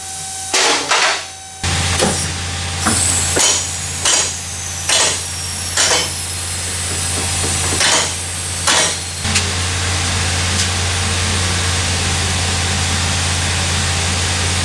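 Sharp metal hammer strikes on a car's front suspension parts, about nine blows spread over the first nine seconds. Under them a steady machine hum comes on abruptly about a second and a half in and runs on alone after the last strike.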